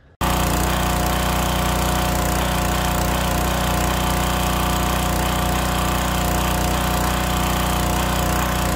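Wilks-USA TX625 pressure washer's four-stroke petrol engine running steadily under load with the spray gun open, the water jet hissing. The engine runs smooth, not pulsing: the new governor spring is holding its speed under load.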